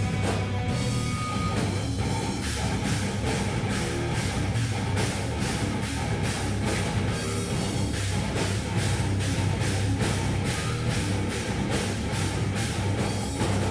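Live hard rock band playing an instrumental passage: electric guitars over a drum kit. The drums hit a steady beat, with sharper cymbal strikes from about two and a half seconds in.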